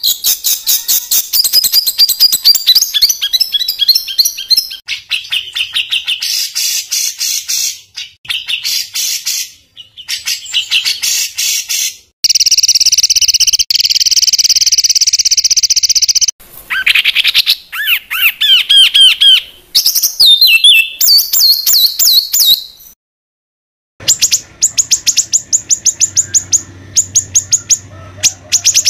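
Songbird singing harsh, rapid 'tembakan kasar' bursts: fast runs of repeated sharp notes and trills. Partway through comes a long steady buzzing phrase, then quick slurred notes. A second of silence shortly before the end breaks the song, then the rapid notes resume.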